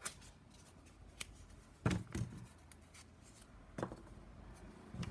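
Hands handling a die-cut craft foam sheet and a foam piece pressed out of it: about half a dozen soft, scattered clicks and knocks, the loudest a little under two seconds in.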